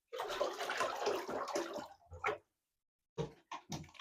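Water splashing in a bathtub around a Labrador puppy being bathed: about two seconds of continuous splashing, then a few short splashes near the end.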